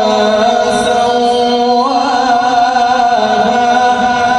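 A man's voice reciting the Qur'an in melodic tilawah style, drawing out one long held note that steps up in pitch about two seconds in and falls back about a second later.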